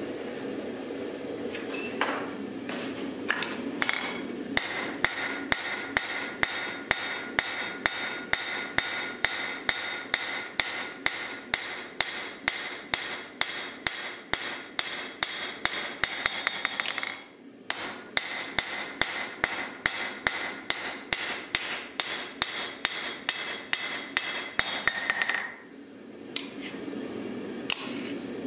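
Hand hammer striking a red-hot steel axe blade on an anvil, about two blows a second, each blow ringing off the anvil. The rhythm stops twice for a moment.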